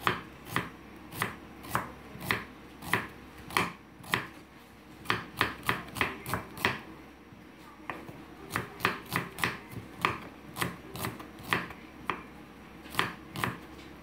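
A knife slicing a red onion on a wooden chopping board, each cut ending in a sharp tap of the blade on the wood, at about two a second. The cutting pauses briefly a little past halfway, then resumes.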